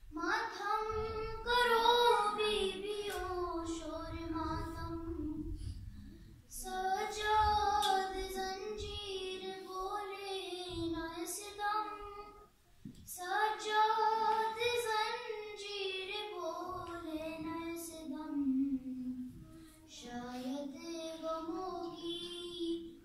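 A solo female voice reciting a salam, an Urdu devotional elegy, unaccompanied. It is sung in long, held, wavering phrases, with a pause for breath about every six or seven seconds.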